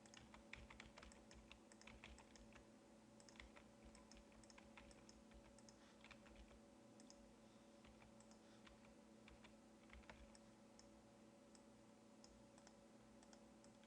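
Faint, irregular clicking of computer keyboard keys over a steady low electrical hum.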